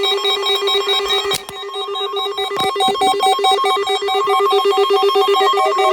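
Electronic alarm of a 12-254 weather alert radio sounding, a loud, rapidly pulsing tone like a telephone ring, set off by the NOAA Weather Radio required weekly test.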